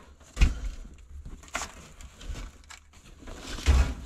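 Hands rummaging through junk and cardboard behind a vehicle seat: rustling and clattering, with a thud about half a second in, a sharp click a little later, and another thud near the end.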